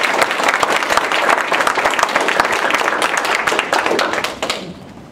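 Audience applauding: a room of people clapping steadily, dying away about four and a half seconds in.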